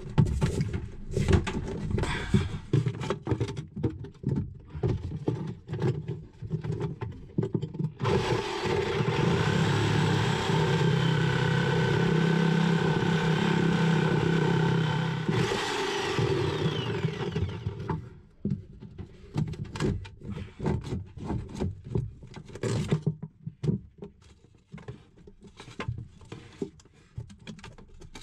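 Knocks and scraping from handling, then about eight seconds in a reciprocating saw (Sawzall) starts suddenly and runs steadily for around eight seconds, cutting at the base of a corroded seacock, before winding down. Scattered knocks follow.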